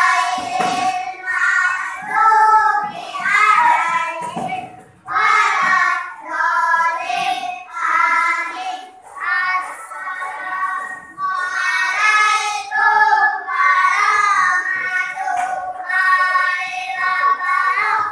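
Child singing a song in a high voice, phrase after phrase with short breaks between lines.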